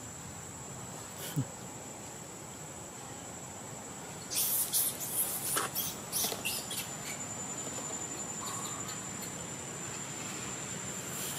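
Steady high-pitched insect drone of crickets or cicadas in the trees. Between about four and seven seconds in comes a run of sharp crackling rustles, likely leaves and twigs stirred as monkeys move in the branches.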